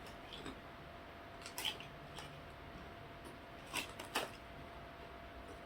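A few short, sharp crackles spread over several seconds, with the loudest pair near the end: an opened bag of Bugles corn snacks being handled and the snacks crunched.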